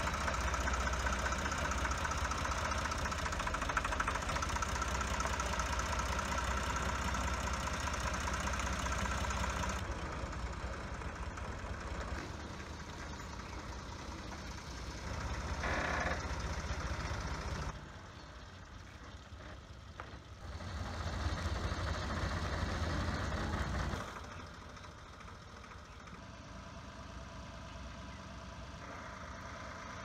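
Tractor engine running steadily as it tows a boat trailer, in several short stretches with abrupt jumps in level between them; loudest in the first ten seconds and quieter over the last few.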